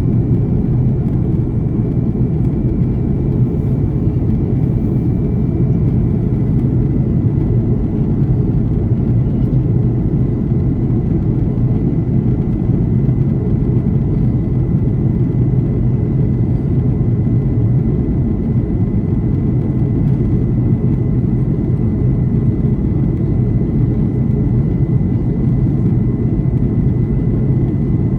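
Steady cabin noise of an Airbus A330 airliner in flight: an even, deep rumble of engines and rushing air, with a faint steady high tone above it.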